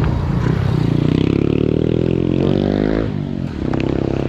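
A motor vehicle's engine accelerating, its pitch rising for about two and a half seconds before it falls away about three seconds in, over a steady low engine hum.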